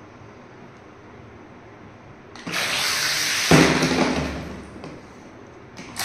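Two small RC toy boats' propellers start up about two seconds in, churning and splashing the bathtub water as the boats race off. The rush of water is loudest about a second later and fades before the end.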